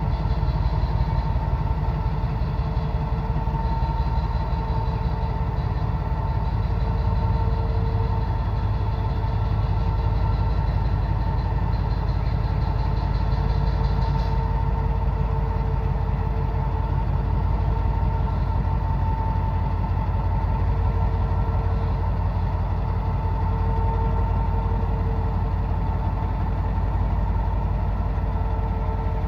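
Pakistan Railways GMCU-15 diesel-electric locomotive's engine idling steadily, with a fine even throb and a steady whine over it, while the locomotive is turned on a turntable.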